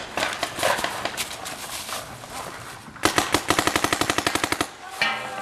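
Paintball markers firing: scattered single pops, then about three seconds in a rapid string of shots, about a dozen a second, for about a second and a half.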